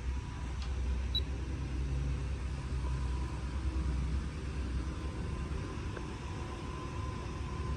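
Permobil power wheelchair seat's recline actuator motor running steadily with a low hum, driven from the ICS seat switch keypad under test.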